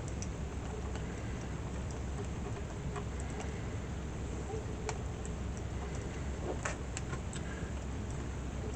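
Faint light clicks and ticks of thin wire being wrapped and handled by hand, scattered at irregular intervals over a steady low hum.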